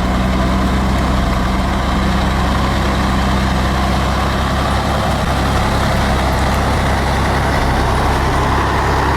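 Heavy truck engine running steadily, with a constant low drone.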